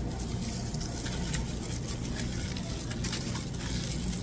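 Aluminium hair-highlighting foils crinkling in short, repeated crackles as they are unfolded and pulled from the hair, over a steady low hum.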